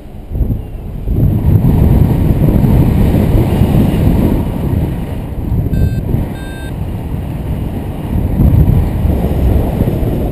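Wind rushing and buffeting over the camera's microphone in paraglider flight, rising and falling in gusts. Two short electronic beeps sound about six seconds in.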